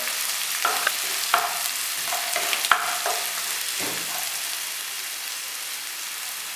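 Chopped onion frying in a pan with ginger-garlic-chilli paste, sizzling steadily while a spoon stirs and scrapes the pan in short strokes about once a second, easing off in the second half.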